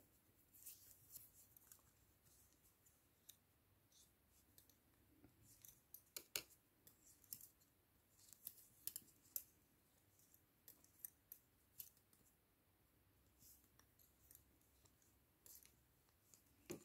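Faint, scattered clicks of metal double-pointed knitting needles from a five-needle set tapping against each other as stitches are worked.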